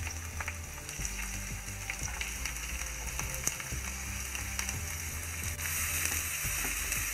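Chopped onions sizzling as they drop into hot oil with mustard seeds and curry leaves, with scattered light clicks. The sizzle grows louder about five and a half seconds in, as the onions are stirred through the oil with a wooden spatula.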